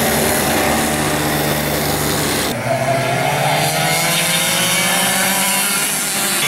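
Several Mini Swift go-kart engines, small 60cc two-strokes, running with a steady buzz. About two and a half seconds in, the sound changes to karts on track, their engines rising in pitch as they accelerate.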